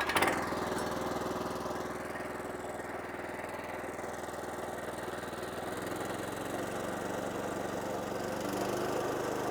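Kohler Command Pro 14 HP engine of a PowerKing stump grinder catching on the recoil pull and then running steadily, started on choke at idle throttle.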